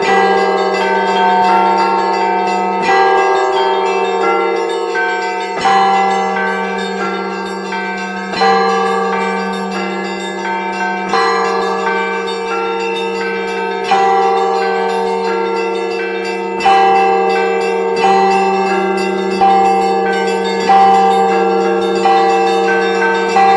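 A set of eight Orthodox church bells, including a newly hung 700 kg bell, rung together in a trial peal. A heavy stroke comes about every three seconds over continuous ringing from the smaller bells, with a deep hum held beneath.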